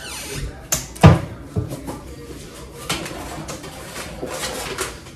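A few short knocks and clunks of kitchen items being handled on a counter, the loudest about a second in.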